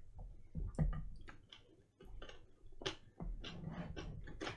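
Chewing on crunchy Fit Crunch protein bar pieces: irregular crunches and crackles at an uneven pace.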